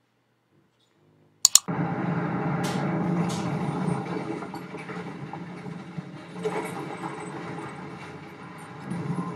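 Soundtrack of a commercial being played back: after a second and a half of silence, two sharp clicks, then a dense, continuous mix that slowly eases off.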